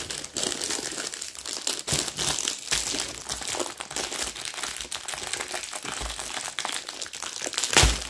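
Clear plastic wrapping crinkling and rustling as it is pulled off a rolled canvas by hand, with a few light knocks and one louder thump near the end.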